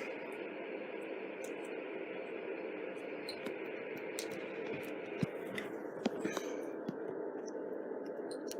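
Steady background hiss with a few faint, short plastic clicks about five to seven seconds in, from Lego minifigure parts being handled and snapped together.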